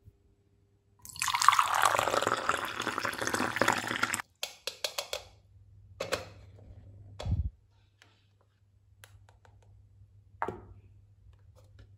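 Juice poured from a toy blender jug into a small plastic cup, a steady pour of about three seconds that stops suddenly. Afterwards come a few light plastic taps and knocks, one with a soft low thud.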